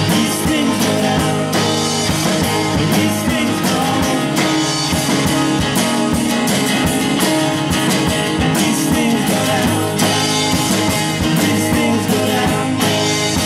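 Live indie-folk band playing together: fiddle, electric bass guitar and strummed acoustic guitar.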